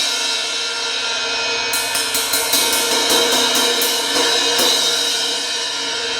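Zildjian 18-inch Z3 Rock crash cymbal struck repeatedly, a run of quick hits in the middle, its wash ringing on and slowly fading. The cymbal has an inch-long crack at its edge.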